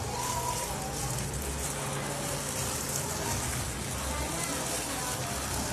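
Plastic-gloved hand mixing and squeezing raw ground-meat filling with chopped vegetables and egg in a bowl, a steady squishing rustle.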